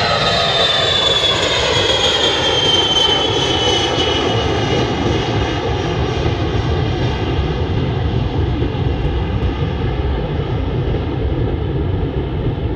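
Jet airplane engines passing by: a whine that falls in pitch over the first few seconds, then a steady low rumble.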